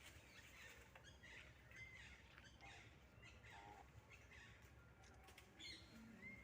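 Faint, scattered bird chirps and calls over a low, steady background rumble.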